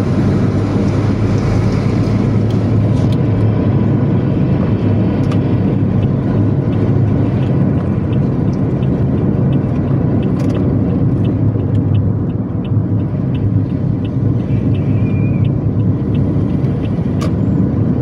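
Steady low rumble of engine and road noise inside a moving vehicle's cabin, with a few faint light ticks over it.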